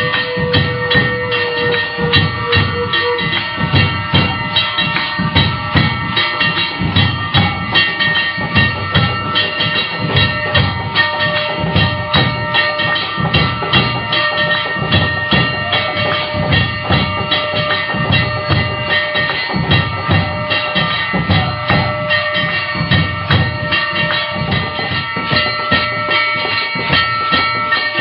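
Music: a steady, fast drumbeat of about three strikes a second under several sustained held notes.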